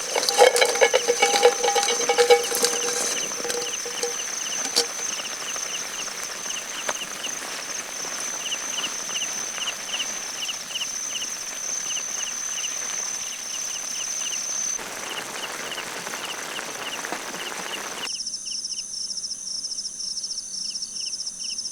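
Night insects: crickets chirping in short repeated pulses over a steady high-pitched trill, with a hiss underneath. In the first few seconds there are scattered clicks and a brief humming tone, and near the end the hiss drops away abruptly.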